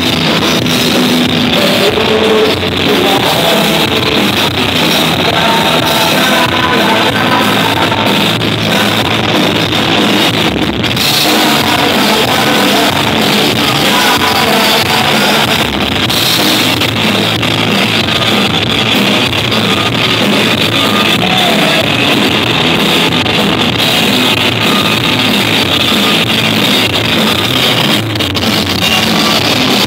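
Live rock band playing with electric guitars, drums and a lead vocal, heard loud from the crowd.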